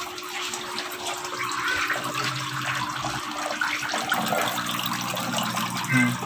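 Running water splashing and trickling steadily, like a water outflow or pump return pouring into a tank, with a faint steady hum underneath.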